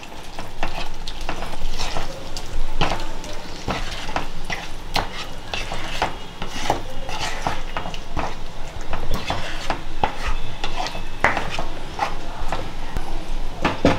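A spatula stirring garam masala into thick matar paneer gravy in a non-stick kadhai. It makes repeated irregular scrapes and knocks against the pan, several a second, over the steady sizzle of the gravy.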